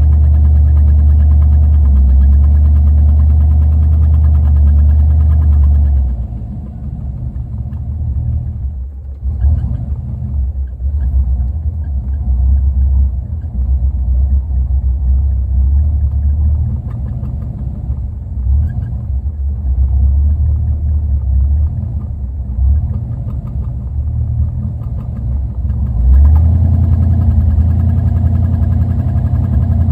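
Car engine idling roughly. It is loud and steady for about the first six seconds; then it turns quieter and uneven, surging and dipping irregularly, and comes back loud and steady about four seconds before the end.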